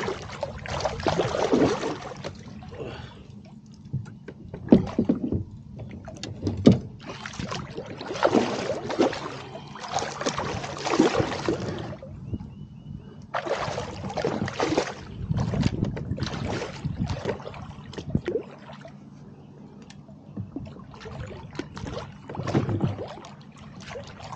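Water sloshing and splashing around a fishing kayak in irregular bursts as a hooked catfish is fought close alongside, over a steady low hum.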